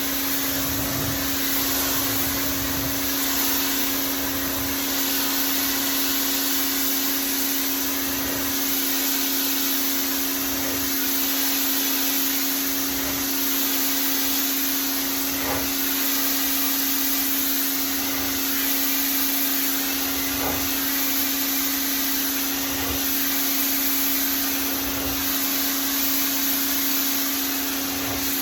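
Pressure washer running steadily with the car wash nozzle tip, spraying an outdoor rug to strip green growth off it: a steady hum under a dense hiss of spray that swells and eases every couple of seconds.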